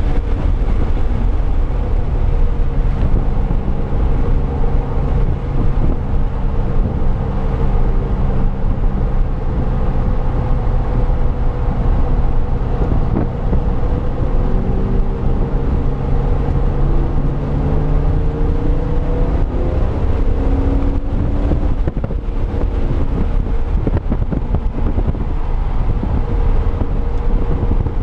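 2005 Pontiac GTO's LS2 V8 running hard at track speed, with wind noise on the microphone. The engine note climbs slowly through a long pull and then falls about twenty seconds in.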